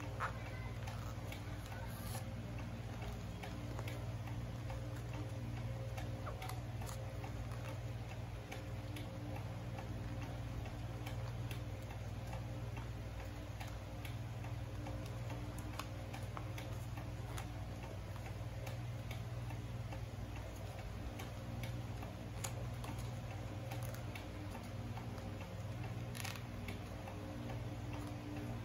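Faint, irregular clicks and crinkles of a sheet of origami paper being folded and creased by hand, over a steady low hum.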